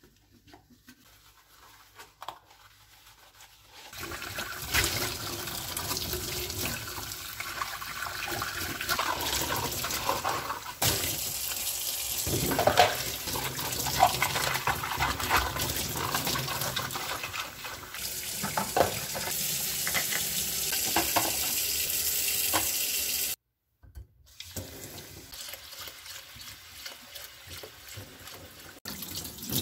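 Kitchen tap running into a stainless-steel sink, with water splashing over hands and dishes as they are rinsed. It starts about four seconds in after a few soft clicks, cuts out abruptly for about a second near the end, then resumes more quietly, streaming into a glass bowl of rice.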